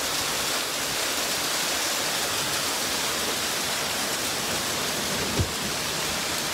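Heavy rain mixed with small hail pouring down in a steady, even hiss. A single low knock stands out about five seconds in.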